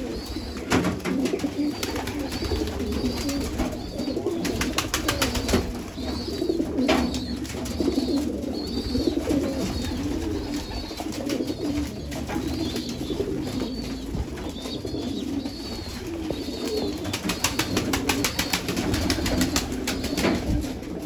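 A flock of domestic pigeons cooing in a low, continuous murmur, with bursts of wing flapping that are heaviest about five seconds in and again near the end. A short, high, arched chirp repeats about once a second over the cooing.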